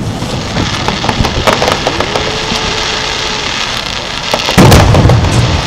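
Fireworks shells bursting overhead: scattered pops and crackles of smaller bursts, then a heavy boom about four and a half seconds in.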